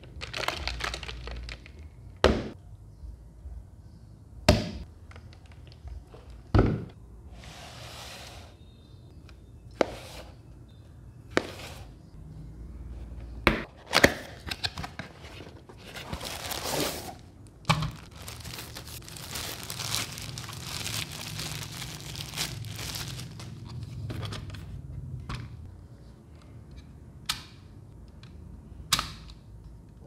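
Product packaging being handled and opened: a series of sharp knocks and clicks with bouts of tearing and crinkling.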